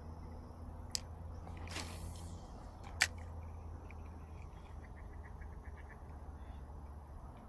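A cast with a fishing rod and reel: a swish as the line pays out about two seconds in, a sharp click from the reel about a second later, then a quick run of light ticks as the reel is cranked. A steady low rumble lies underneath.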